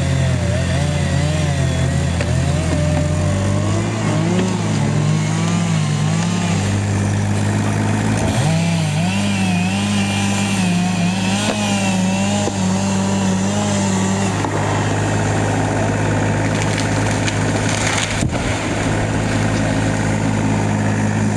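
Chainsaw engine running loudly and continuously, its pitch wavering up and down every second or so as the engine speed shifts.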